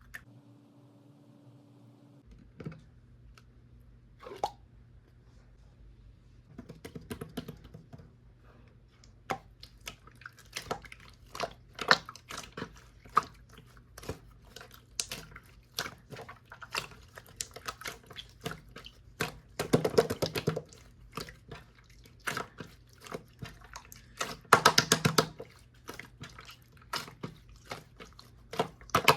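Hands kneading and stretching a blue pearl slime, making sticky clicks, squelches and small air-pocket pops that come thicker and louder in two bursts in the second half.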